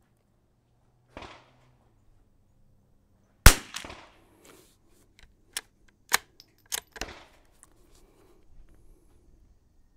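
A .22 rimfire bolt-action rifle, a Kimber 82 Super America firing Lapua Super Long Range, fires one sharp shot about three and a half seconds in. The bolt is then worked by hand in a run of metallic clicks and clacks over the next few seconds, two of them sharp. A fainter crack sounds about a second in.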